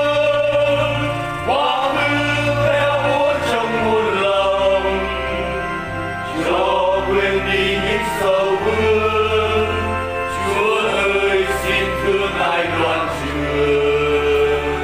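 A Vietnamese Catholic hymn sung to an instrumental backing track: a sung melody line over sustained bass notes that change every couple of seconds.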